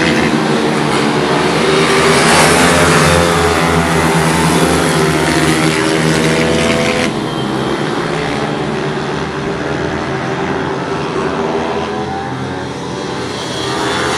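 Pit bike engines racing, several motors running hard at once with their pitch rising and falling as the riders work through the corners. About halfway through the sound changes abruptly and becomes a little quieter.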